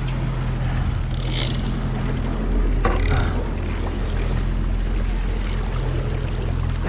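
Small boat's engine idling with a steady low hum, under a hiss of wind and water, with a couple of brief noises about one and three seconds in.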